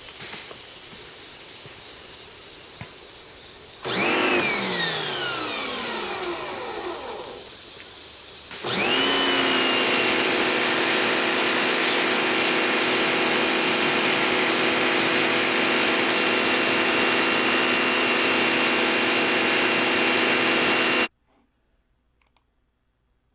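Electric pressure washer motor and pump: about four seconds in a loud sound sinks steadily in pitch for a few seconds, then the motor starts with a quick rise in pitch, settles to a steady whine for about twelve seconds and cuts off suddenly.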